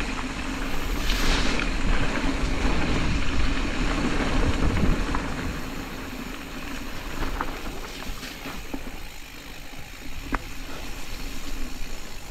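Specialized Status 140 mountain bike riding a loose, rocky trail: tyres rolling over dirt and rocks, with wind rushing on the camera microphone and a few sharp clicks and knocks from the bike. It gets quieter after about six seconds.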